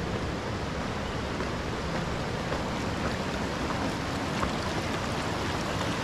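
Steady rushing of a shallow mountain river flowing over stones.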